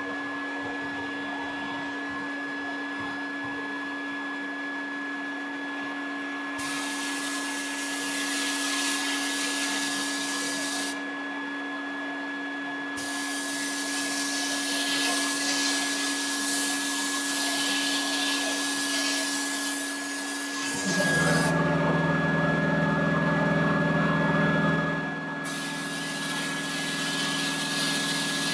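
Sandblast cabinet at work: the dust-collector motor hums steadily while the blast gun's air hisses in several long bursts that start and stop sharply, stripping rust from a cast meat grinder. From about 21 to 25 seconds a louder, deeper machine sound joins in.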